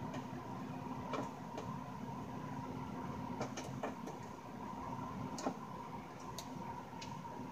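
Small, irregular clicks and ticks of a screwdriver working the screws out of a Yamaha THR10X amplifier's case, some in quick pairs, over a steady faint hum.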